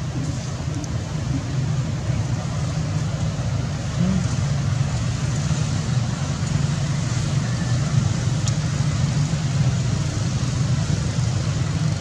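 Steady low background rumble with an even hiss above it and no clear animal calls; one faint tick about eight and a half seconds in.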